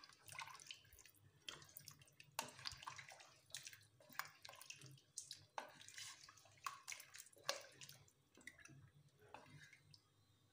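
Faint stirring of a thin, watery curry with a spatula in a pot: liquid sloshing and splashing, with irregular light knocks and scrapes against the pot.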